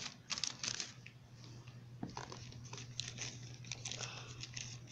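Lined notebook paper being handled by hand, rustling and crinkling in short, irregular crackles, heaviest in the first second.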